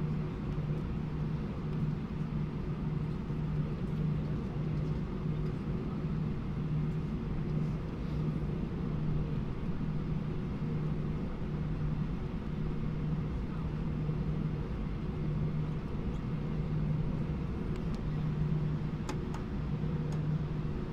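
Steady cabin noise of an Airbus A319 taxiing: the idling jet engines and cabin air make a constant low hum with a steady low tone.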